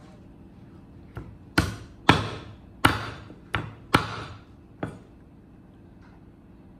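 Meat cleaver chopping raw meat on a thick round wooden chopping block: seven chops between about one and five seconds in, the middle ones loudest.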